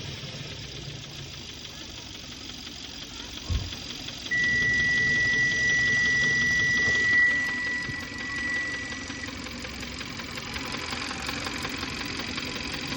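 Car engine settling to idle after a rev, with a knock. A single thump about three and a half seconds in, then a steady high-pitched tone for about five seconds, the loudest sound here.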